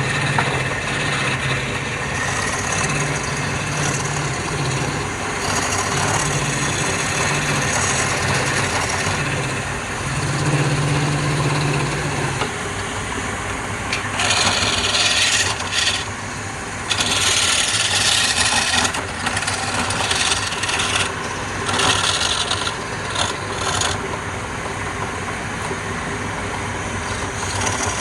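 Wood lathe running with a steady motor hum while a tool rubs and scrapes against the spinning wood, in loud repeated passes through the second half.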